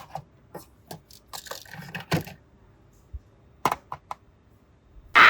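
Small plastic toys being handled, making a dozen or so scattered light clicks and taps with brief rustles. A loud, sudden noise starts right at the end.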